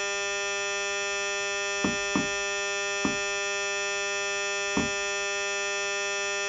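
A steady, unbroken electronic buzz from a crashed computer whose screen has frozen into a glitch. A hand knocks on the cardboard computer casing four times: twice close together about two seconds in, again about a second later, and once more near five seconds.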